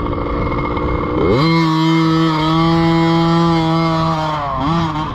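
Dirt bike engine revving up sharply about a second in, then held at a steady high pitch as the bike rides off down the trail. Near the end it dips briefly and picks up again.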